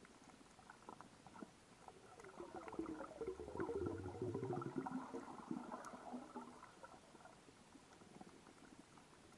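Underwater sound on a coral reef: a burst of rapid crackling pulses swells up about two and a half seconds in, peaks in the middle and fades out after about four seconds. Faint scattered ticks sit over a steady underwater hiss.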